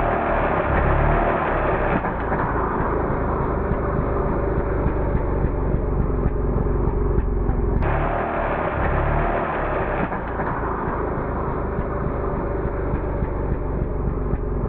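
Chainsaw running, its sound slowed down with the slow-motion footage into a deep, muffled rumble with no high end.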